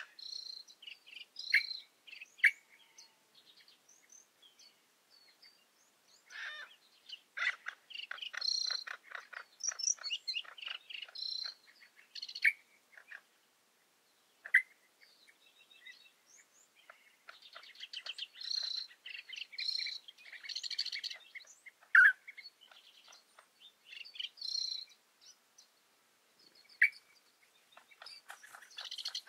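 A mix of small arid-scrub birds singing and calling: high chirps and whistled notes with fast rattling trills, coming in bursts with short lulls.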